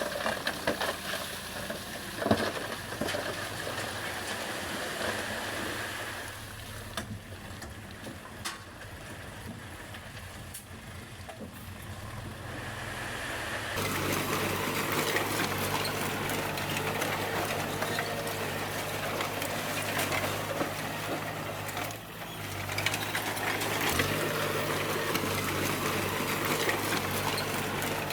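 D20 bulldozer's diesel engine running, with scattered knocks and clanks. About halfway through the engine gets louder and its low hum steadier and stronger, as if working under load.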